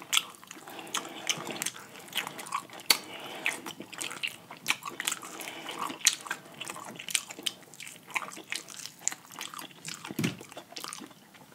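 A person eating fried chicken legs: biting and tearing meat off the drumstick bone and chewing, with many short irregular clicks and crunches.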